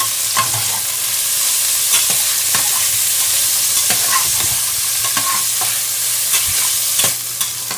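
Tofu, fish balls and carrots sizzling in hot oil in a pan as they are stir-fried, with irregular clicks of the stirring utensil against the pan.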